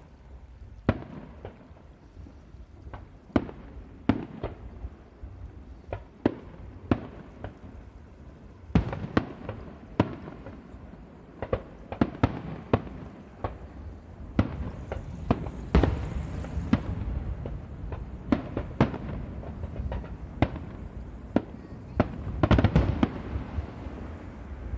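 Aerial fireworks shells bursting in an irregular barrage of sharp bangs, often one or two a second, over a continuous low rumble. A brief high hiss comes about fifteen seconds in.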